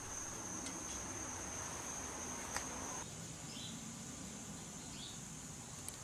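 Faint outdoor background with a steady high-pitched insect trill that stops about halfway through, followed by a couple of faint short chirps.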